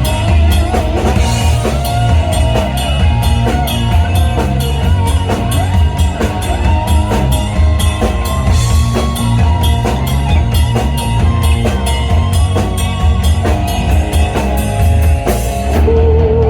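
A live rock band playing an instrumental passage with no vocals: a drum kit is beaten steadily under electric guitar lines that bend in pitch. About a second before the end the drums drop out, leaving held notes.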